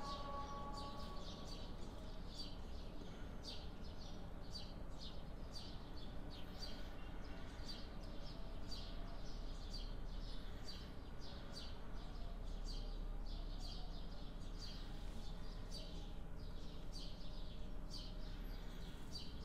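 High-pitched chirping, short chirps repeating irregularly two or three times a second, over a low steady hum.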